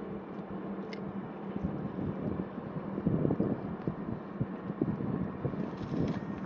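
Wind buffeting the microphone in irregular gusts that pick up about halfway through, over a steady low hum.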